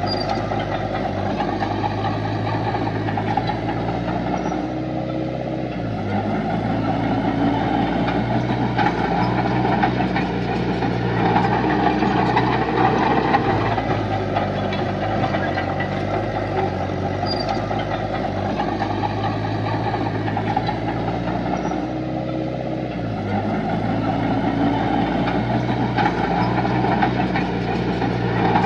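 Heavy diesel earthmoving machinery running steadily, its engine note shifting in pitch twice, about five seconds in and again a little past twenty seconds.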